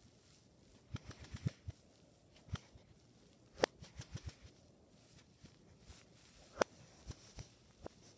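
Bubbles of a silicone pop-it fidget toy popping under a fingertip: about a dozen soft, irregularly spaced pops, the sharpest ones about three and a half and six and a half seconds in.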